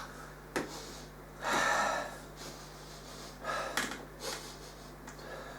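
A person sniffing in close to the running electronics, in a few breathy draws, the longest about one and a half seconds in, checking for any burning smell from the newly fitted power supply. A sharp click comes just before the first sniff.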